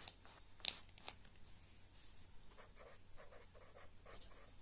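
Pen writing on paper, faint. Two sharp ticks come about a second in, then a run of short scratching strokes of the pen tip as a word is written.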